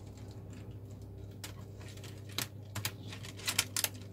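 Light plastic clicks and taps as Wi-Fi antenna cables are worked out through a Dell laptop's plastic palm-rest housing, sparse at first, then several in quick succession in the second half. A low steady hum sits underneath.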